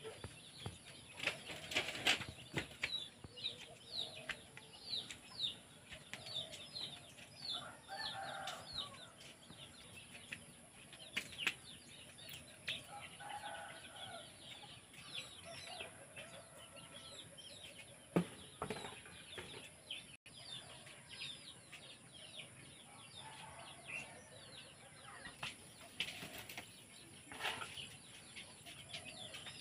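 Birds chirping in many short, quick calls that repeat throughout, with a few lower clucking calls from chickens now and then.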